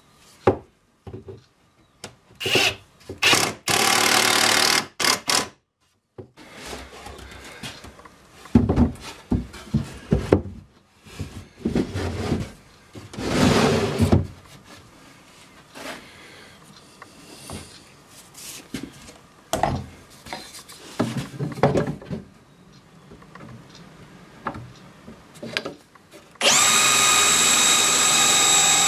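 Cordless drill running in short bursts, the longest a steady whine of about two and a half seconds near the end. Between the bursts, wooden knocks and scraping as a plywood drawer is handled and slid in the chest.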